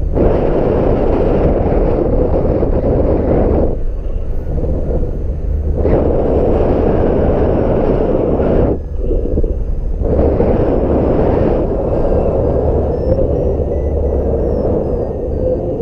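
Strong, gusty wind buffeting the microphone, a loud low rumble that surges and drops away in gusts.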